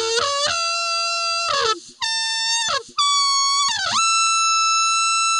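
Physics-based synthesized brass instrument (a simulated trumpet-like acoustic tube with lip excitation) playing an expressive gesture: quick notes climbing the harmonics, then a series of held notes, each higher than the last, with falling slurs and short breaks between them, a fast dip and swoop up, and a long held high note near the end.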